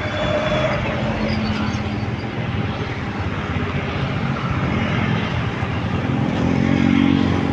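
Road traffic passing close by: a box truck and motor scooters going past with their engines running, one scooter growing louder near the end.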